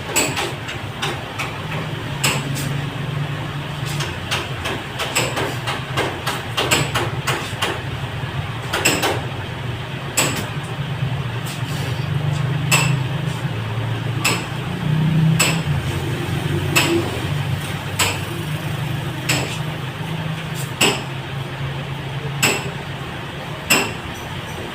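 Irregular sharp clicks and knocks, about one every second, over a steady low hum.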